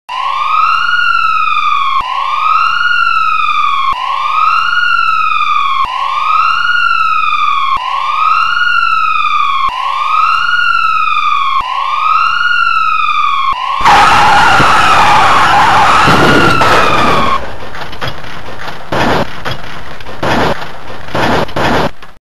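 Ambulance siren wailing up and down, each rise and fall about two seconds long, seven times over. About 14 seconds in, a loud burst of noise breaks in and the siren wavers faster for a few seconds, then stops. A run of knocks and rattles follows.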